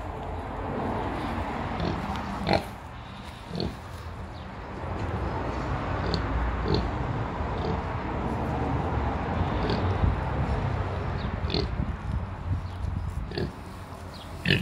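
A sow nursing her litter of piglets: a steady low grunting and snuffling, with short high piglet squeaks every second or two as the piglets jostle at the teats.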